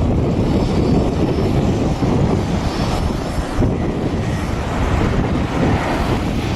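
Airliner engines at an airport: a loud, steady noise, heaviest in the low range.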